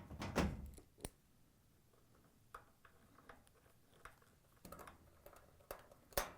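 Faint scattered clicks and knocks of hand work on a washer's metal top cover and its Torx screws, the cover being set in place and fastened. The loudest knocks come about half a second in and just before the end.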